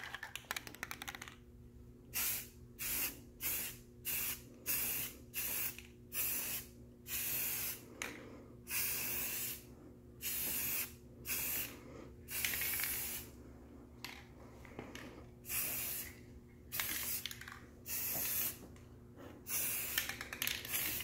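Aerosol can of Ultra Cover spray primer hissing in short bursts, about one a second, as primer is sprayed onto small steel wheel rims.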